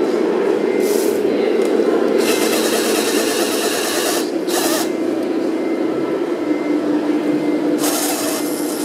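Small motor running steadily, with short bursts of hiss about two seconds in, near the middle and near the end.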